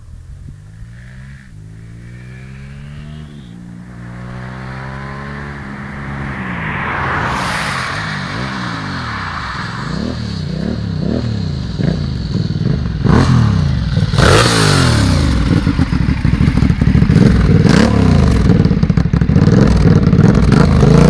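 Aprilia Shiver 750 motorcycle's V-twin engine rising in pitch over the first few seconds, then revved up and down again and again, growing steadily louder.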